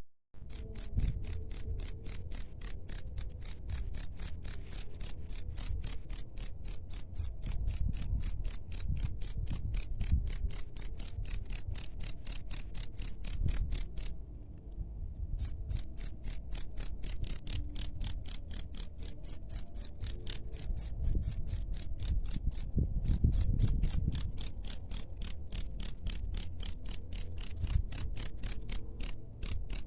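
Cricket chirping, a steady run of high-pitched chirps at about three a second, with a pause of about a second midway and a brief break later. A faint low rumble sits underneath.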